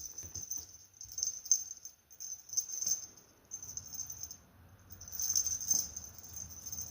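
A cat toy jingling in short, irregular bursts, loudest about five seconds in.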